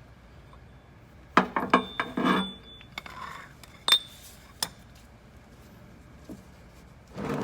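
Metal tools clinking and knocking: a quick cluster of clinks about a second and a half in, one of them ringing briefly, then two sharp single clinks a couple of seconds later.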